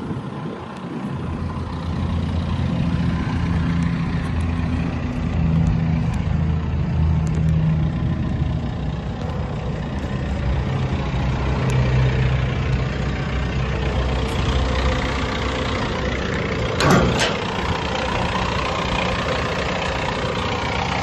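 Diesel engine of a Hitachi ZX160LC-6 excavator idling steadily, with one brief knock about three-quarters of the way through.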